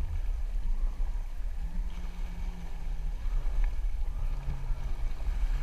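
Jet ski engine running steadily, with wind buffeting the microphone.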